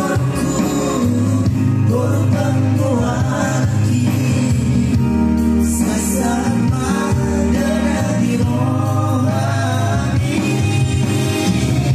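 A man singing a song into a microphone over a backing track with a steady bass line, holding long notes that bend and waver in pitch.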